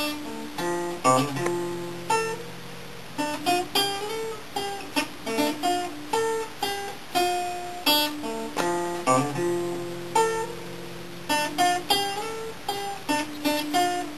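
Classical acoustic guitar played by hand: a melody of single notes picked one after another, with a few low notes let ring for a second or two.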